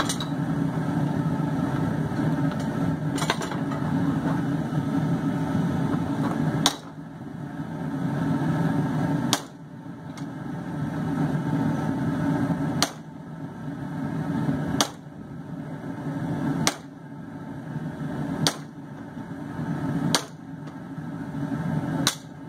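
Steel hammer blows at the vise splitting a hot steel bar for a pair of tongs: eight sharp strikes, about one every two seconds, starting about a third of the way in. Under them is the steady rush of the forge running.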